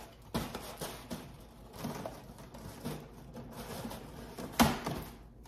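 Light clicks and knocks of kitchen decorations being handled and set down on a counter, the sharpest about four and a half seconds in.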